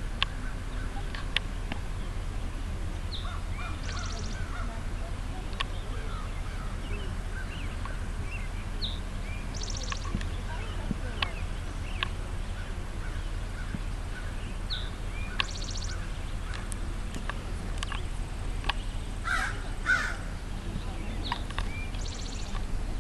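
Birds calling and chirping here and there over a steady low rumble, with two louder calls about twenty seconds in and a brief fast high trill recurring every few seconds.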